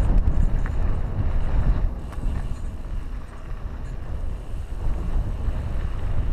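Wind buffeting the microphone over the low rumble of mountain bike tyres rolling on a dirt trail, a little louder for the first couple of seconds.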